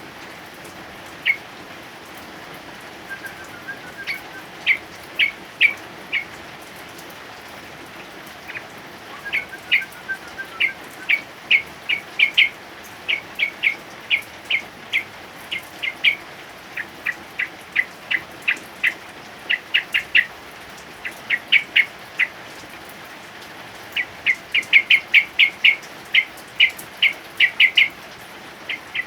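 Male yellow-vented bulbul (trucukan) giving many short, bright chirping notes in quick runs, sparse at first and then coming several a second, over the steady hiss of heavy rain.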